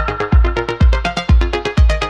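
Background electronic dance music with a steady kick drum about twice a second and synth notes over it.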